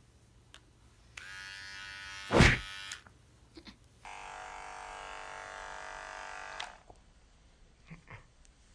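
Electric pet hair clippers running in two passes of steady buzzing, each about two and a half seconds long. A short, louder noise comes partway through the first pass.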